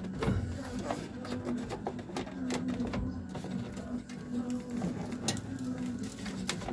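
Scattered clicks and rattles of wiring connectors being handled and pushed behind a 1968 Camaro's gauge cluster, over a low hum that comes and goes.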